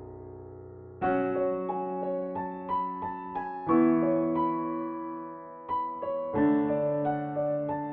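Background music on a piano-like keyboard. A held chord fades out, then about a second in a new phrase of struck notes and chords begins.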